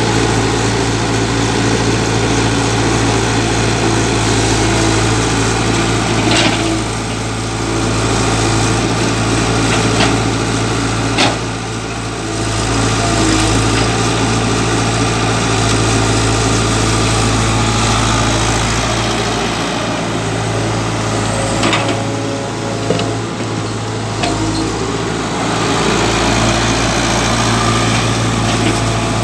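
Tata Hitachi EX70 excavator's diesel engine running steadily as it digs, with a few sharp clanks of the steel bucket striking stones.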